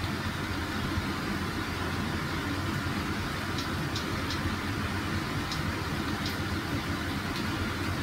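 Steady low room hum, with a few faint, irregular clicks in the second half as buttons are pressed to move across an on-screen keyboard.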